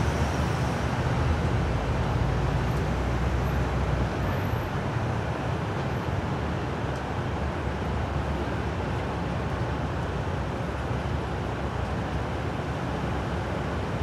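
Steady outdoor street noise: a low traffic-like rumble under a hiss, easing off slowly over the first few seconds, with no sharp bangs.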